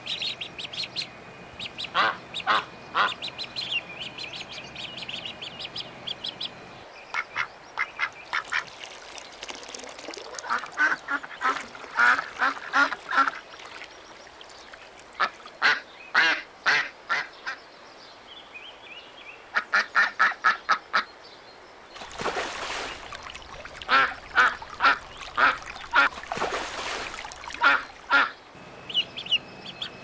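Ducks quacking in quick runs of short calls, several bursts a few seconds apart with pauses between.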